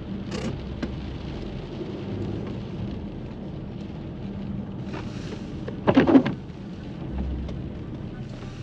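Steady rain with a low rumble underneath, and one brief louder sound about six seconds in.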